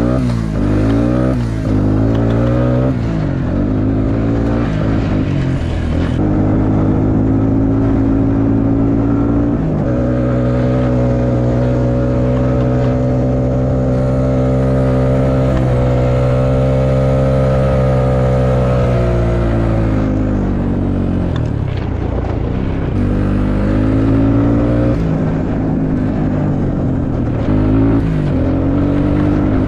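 Suzuki King Quad 300 ATV's single-cylinder four-stroke engine running under way, its pitch rising and falling with the throttle. Through the middle it holds a steady, higher pitch for several seconds, then drops back and varies again.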